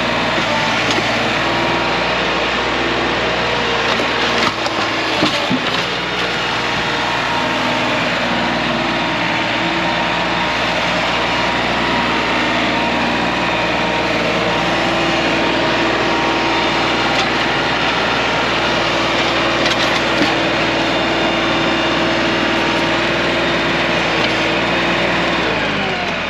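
Chainsaw running at full throttle and cutting through logs, its engine pitch held steady under load, with wood chips flying; the saw drops off sharply near the end.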